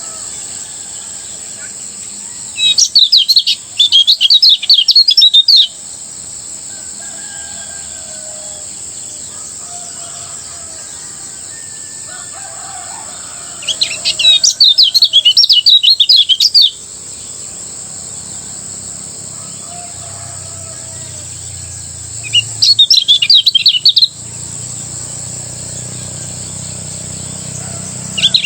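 Kecial kuning (a Lombok white-eye) singing its fast, continuous chattering song in three loud bursts of rapid high twittering, each two to three seconds long, with pauses of several seconds between them.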